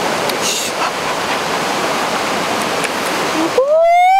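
Steady rushing of a waterfall. About three and a half seconds in, a man's voice cries out loudly in one long call that rises in pitch and is then held.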